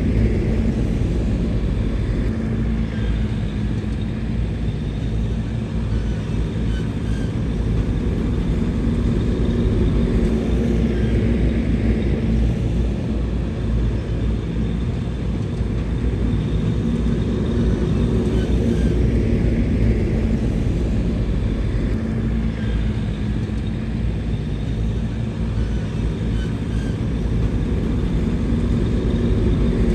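Heavy earthmoving machinery's diesel engine running steadily, its note swelling and easing gently a few times.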